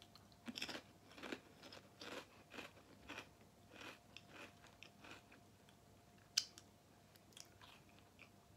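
Faint crunching as a person chews a mouthful of popped potato chips (Popchips), about two crunches a second, easing off after about five seconds, with one sharp click about six and a half seconds in.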